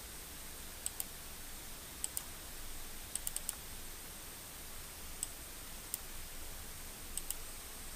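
Computer mouse clicking: about a dozen short sharp clicks, some in quick pairs and a run of four about three seconds in. Underneath is a steady microphone hiss with a faint high whine.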